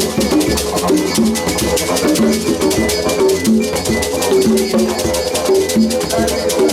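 Kora, didgeridoo, congas and shekere playing together: a shekere rattling in a fast, even rhythm over a low didgeridoo drone, with plucked kora notes and conga strokes.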